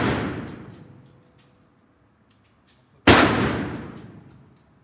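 A handgun shot about three seconds in, its report echoing off the indoor range and dying away over about a second and a half. The echo of another shot fired just before is fading at the start, and a few faint clicks fall in between.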